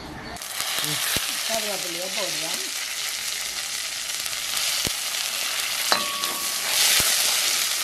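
Chopped green chillies dropped into hot sesame oil and mustard seeds in a metal kadai, sizzling hard from about half a second in and stirred with a ladle. There are a few sharp clicks, one a short metallic ring of the ladle on the pan just before the sizzle swells near the end.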